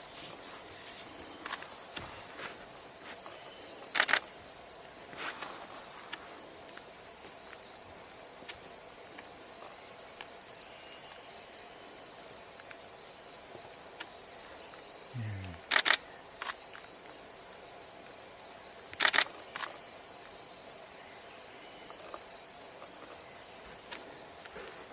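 Steady, high-pitched insect chorus of crickets, with a handful of sharp clicks, the loudest about 4, 16 and 19 seconds in, and a brief low falling sound about 15 seconds in.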